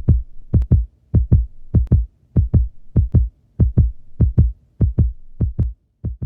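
Heartbeat sound effect: steady paired low thumps, lub-dub, a little over one and a half beats a second.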